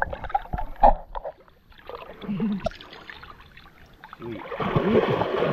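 Water splashing and sloshing as a catfish is hauled out of the river by hand, with scattered knocks at first and the splashing swelling over the last second.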